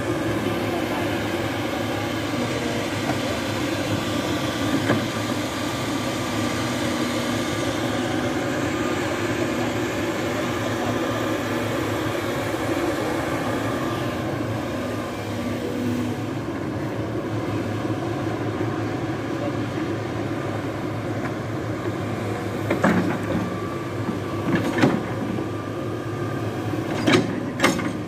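Hitachi ZX-210 excavator's diesel engine running steadily under working load, with a few sharp knocks near the end as the bucket handles the logs.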